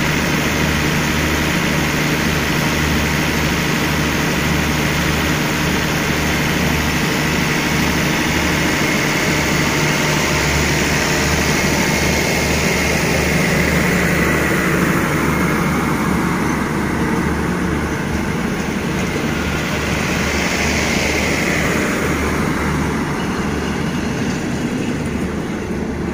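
An express passenger train's coaches rolling out past the platform as the train departs: a steady rumble of wheels on the rails with a low hum under it. The noise eases a little near the end as the last coaches go by.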